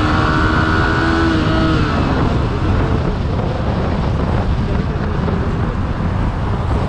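Yamaha R15 V3's 155 cc liquid-cooled single-cylinder engine running steadily in third gear at about 80 km/h. Its engine note fades about two seconds in under a steady rush of wind and road noise.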